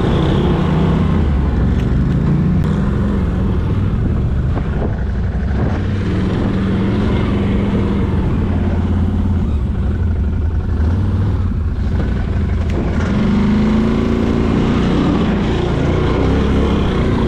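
Can-Am Renegade 1000 quad's V-twin engine running under throttle while riding, its pitch rising and falling as the throttle changes.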